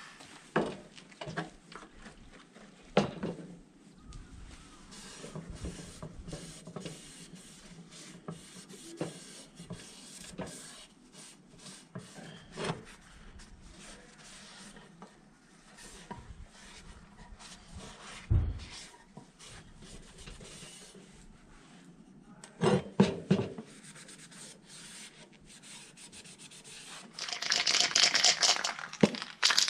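Hand work on a metal part: intermittent rubbing and scraping with scattered clicks and knocks, and a louder stretch of harsh scraping near the end.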